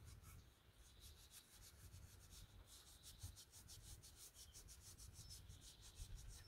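Faint, quick rubbing strokes of a cloth polishing the metal rim of an old battery cell tester's dial gauge with metal polish.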